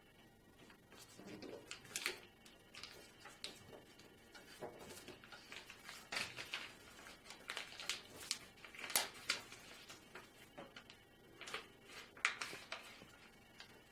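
Sheet of origami paper being handled, folded and creased by hand: irregular crisp crackles and rustles, with sharper snaps scattered throughout.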